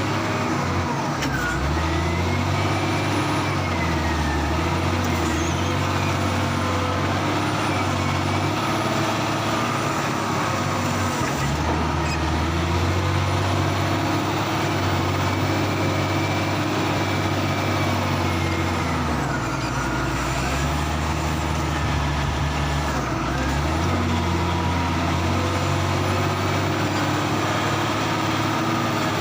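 Heavy diesel engine working at unloading, its low hum stepping up and down in pitch several times as the engine speed changes, with a fainter whine rising and falling above it.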